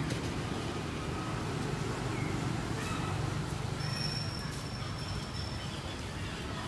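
Outdoor background noise: a steady low rumble. Over it come a few faint bird chirps, a thin high whistle held for about a second and a half past the middle, and a few faint clicks.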